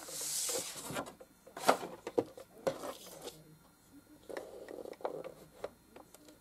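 Paper being handled: a rustling swish at the start, then a few sharp taps and clicks, and softer rustling later.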